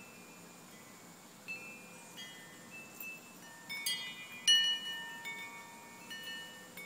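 Metal tube wind chime struck by its wooden striker: scattered light tinkling, each strike leaving several ringing tones that hang on. Strikes are sparse at first, gather around the middle, and the loudest comes just past the middle.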